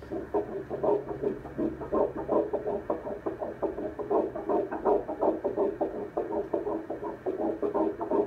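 Ultrasound scanner's Doppler audio playing a 7-week embryo's heartbeat: fast, even pulses, about three a second.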